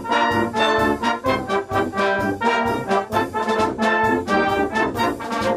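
Brass band playing a quick run of short, detached notes.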